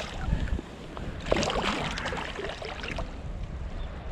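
Water splashing and sloshing as a striped bass is released by hand at the surface, with a louder burst of splashing about a second and a half in, over a steady rush of moving water.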